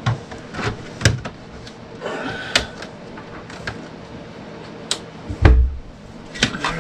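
Plastic cover of an under-cabinet light fixture being handled and pressed into place, a run of small clicks and knocks, with a heavier thump about five and a half seconds in.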